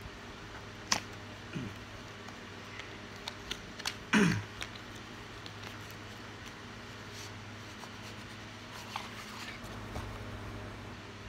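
Handling of a card deck and its cardboard box: a sharp click about a second in, a few light taps, and a louder brief scrape just past four seconds. A steady low hum runs underneath.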